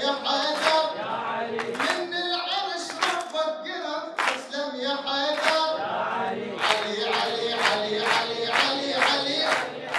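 A man singing a devotional praise song while the audience claps along; the claps are scattered at first, then settle into a steady beat of about three a second from about two-thirds of the way in.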